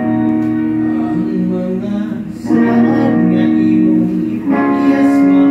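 Live band playing the opening of a song: electric guitar chords ringing out over bass guitar, the chord changing about every two seconds.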